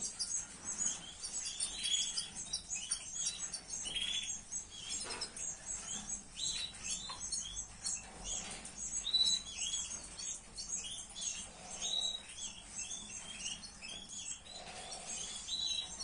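Canaries chirping: a steady stream of short, high chirps with repeated down-slurred calls.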